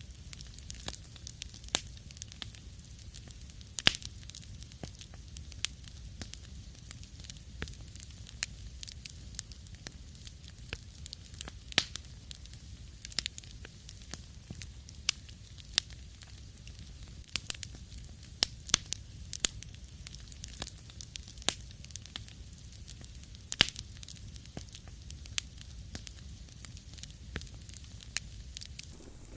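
Wood fire crackling in a fireplace: irregular sharp pops and snaps scattered over a faint low rumble of the flames.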